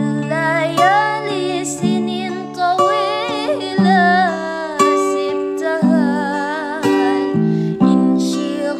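Background music: a wavering melody line over plucked-string notes, with a new note about once a second.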